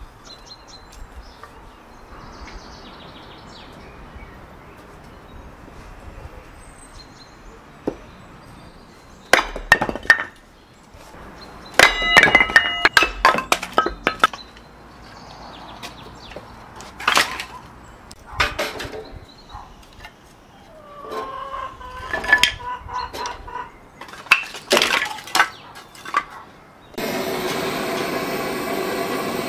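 Hatchet chopping kindling on a wooden stump: scattered sharp chops and cracks of splitting wood in clusters, some with a brief ring. Near the end a steady roar starts as a fire is lit in a small portable wood stove.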